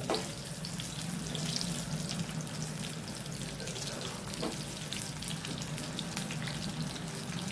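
Corn pakodas deep-frying in hot oil: a steady sizzle with fine crackling as the batter fritters turn crisp.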